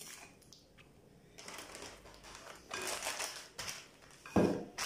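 Plastic zip-top freezer bag crinkling and rustling in irregular bursts as lemon slices are pushed into it by hand, after a sharp click at the start.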